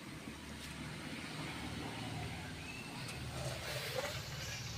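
Sugar syrup boiling in a metal kadai over a lit stove: a steady low rumble with a light bubbling crackle, and a few faint clicks from the steel ladle.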